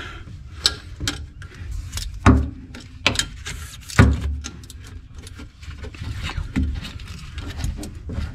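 Hand wrench working on rusted engine bolts in a VW Bay Window Bus engine bay: irregular metallic clicks and knocks, with a couple of heavier thumps about two and four seconds in.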